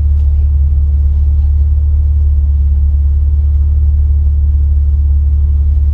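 Jeep Wrangler LJ engine running, a loud, steady low rumble.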